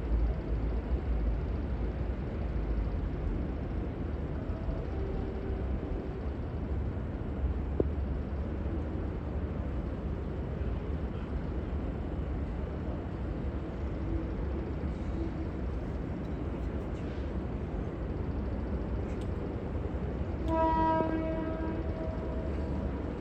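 Steady low rumble, then near the end a V/Line VLocity train's horn sounds one blast on a single note for about two seconds.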